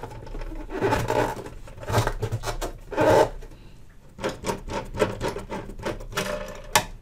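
Handling noises from a valve radio in its case: a few knocks and rubs as it is moved and turned over, then a run of small clicks and scrapes as a screwdriver turns screws into the metal bar on the case's base.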